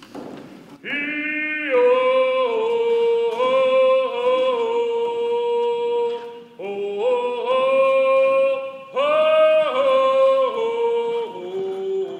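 A man singing an Indigenous song in long held notes, in three phrases that each step down in pitch, the voice loud and clear with short breaks between phrases.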